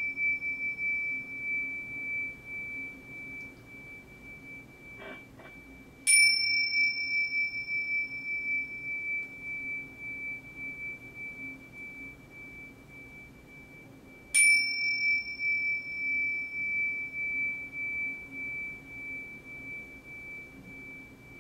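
Tibetan bells ringing to mark the start of a meditation. A high ringing tone from a strike just before is already fading, then two more strikes come about six and fourteen seconds in. Each is a sharp clink followed by one long, steady high tone that slowly dies away.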